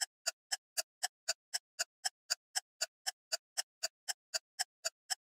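Steady, even ticking like a clock, about four ticks a second, used as an intro sound effect; it stops just before the end.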